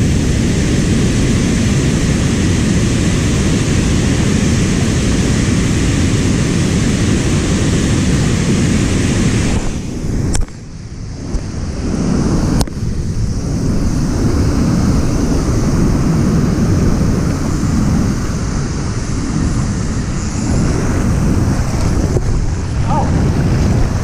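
Steady rush of fast whitewater below a dam spillway, mixed with wind buffeting the microphone; the noise dips briefly about ten seconds in, then comes back.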